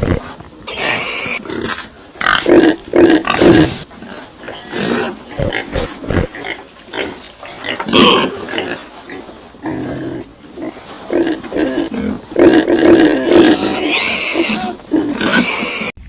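Animal calls: many short, loud calls in quick irregular succession, some high-pitched.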